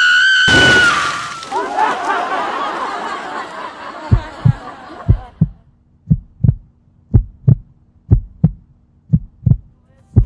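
Heartbeat sound effect: pairs of low thumps about once a second, starting about four seconds in. Before it, a high ringing tone and a noisy wash fade out over the first few seconds.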